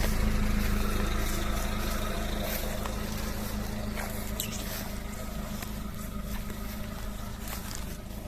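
Suzuki Samurai's small four-cylinder petrol engine running steadily, growing gradually quieter.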